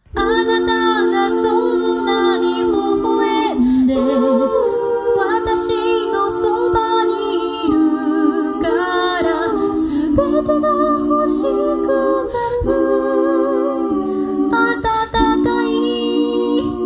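Unaccompanied layered female vocal harmony: one singer multitracked in low, middle and high parts, singing held chords that change every second or so. It begins abruptly.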